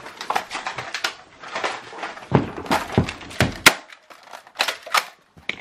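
Rustling and knocking close to the microphone, as the handheld camera is jostled in a scuffle: an irregular run of rustles, clicks and thumps, the loudest thump about three and a half seconds in.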